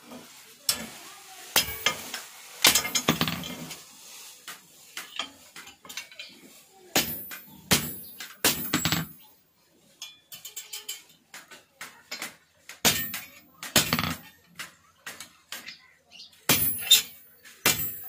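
Hand hammer striking an iron implement on a steel anvil block, about a dozen irregular blows. The hardest blows ring high and metallic.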